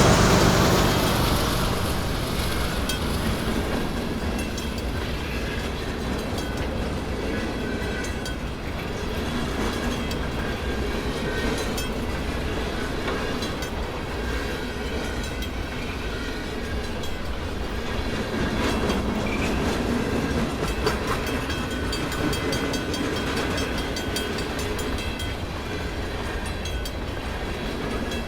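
CN freight train rolling past: a loud passage fades over the first couple of seconds, then freight cars run by steadily with the wheels clicking over the rail joints.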